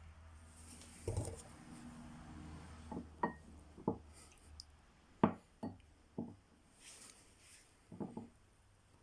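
A string of light clicks and knocks, about nine in all at uneven intervals, as hard parts and tools are handled and set down.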